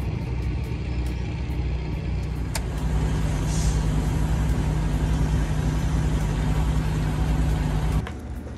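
An engine running steadily at a low hum, a little louder from about three seconds in, cutting off suddenly near the end.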